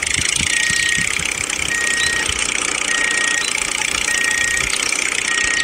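Tractor engine sound running steadily, with a short high beep repeating about every second and a bit.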